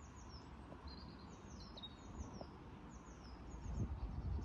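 Small birds chirping in repeated short, high notes that fall in pitch, over a steady low background rumble.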